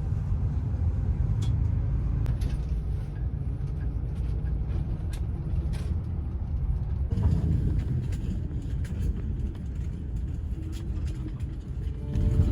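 Route bus riding along, heard inside the cabin: a steady low rumble of engine and road noise with a few light clicks and rattles.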